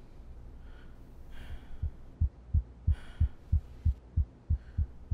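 Heartbeat sound effect: low, regular thumps at about three beats a second, starting nearly two seconds in, over a steady low hum.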